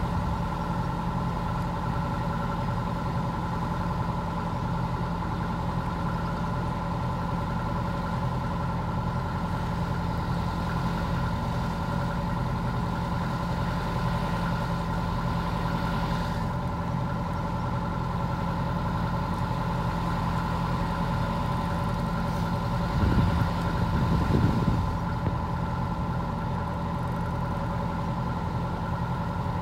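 Inboard diesel engine of a hire motor cruiser running steadily while under way, a constant drone with a steady whine over it. A brief low rumble comes about two-thirds of the way through.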